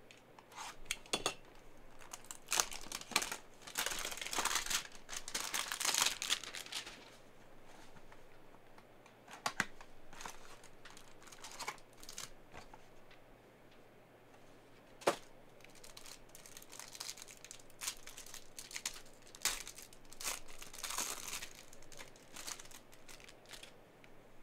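A trading-card hanger box being opened by hand: cardboard tearing and the plastic wrap around the card stack crinkling, in bursts, with one sharp click about fifteen seconds in.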